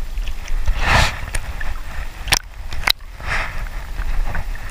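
Sea water lapping and swishing close to the microphone, with two sharp clicks about half a second apart midway through.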